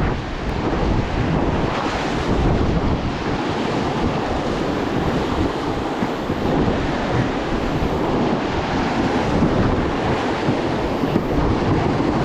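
Loud, steady rush of whitewater rapids around a raft, with wind buffeting the microphone.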